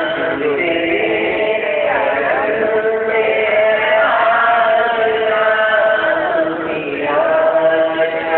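A man sings a naat, an Urdu devotional praise song, through a microphone and PA in a flowing, melismatic chant-like line. Other voices hold a steady note beneath him.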